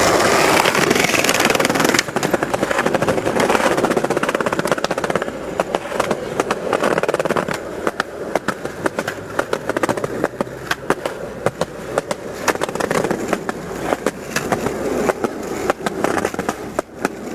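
Skateboard wheels rolling over rough street pavement at speed. After about two seconds, many sharp clicks and knocks join the rolling, several a second, as the board goes over cracks and joints.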